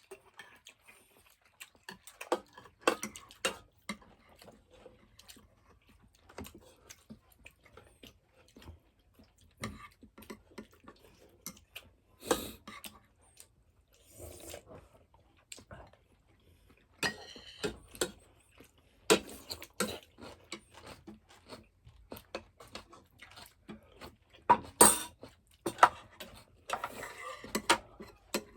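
Dishes and cutlery clinking and tapping at irregular moments during a meal, with chewing between the clinks.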